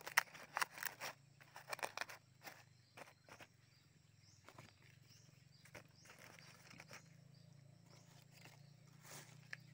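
Large dry leaves crackling and rustling as a hand lays and presses them on the ground. The crackling is densest in the first two seconds, with scattered crackles after that. A faint steady low hum runs underneath.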